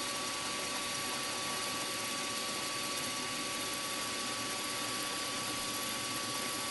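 Milling machine spindle running steadily with a constant high whine, while a 6 mm end mill is fed straight down into a metal carburettor body, used like a drill rather than side-cutting.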